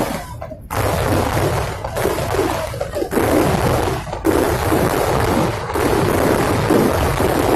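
Dense barrage of firecrackers going off in rapid succession, the blasts overlapping into one continuous loud din with brief lulls every second or two.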